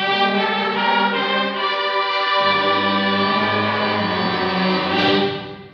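Junior high school band playing a loud, full held chord with brass prominent, entering together at once; about halfway through the bass notes drop lower, and about five seconds in the whole band cuts off together, leaving the hall's echo to die away.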